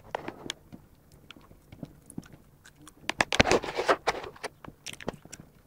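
Footsteps and ball touches on artificial turf: scattered sharp taps and thuds at an irregular pace, with a louder burst of noise about three and a half seconds in.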